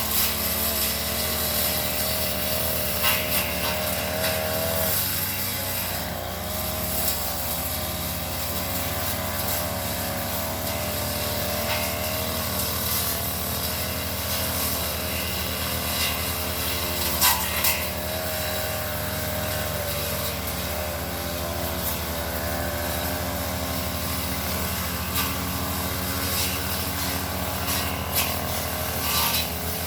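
Brush cutter engine running steadily while cutting undergrowth, with a few brief sharp clicks.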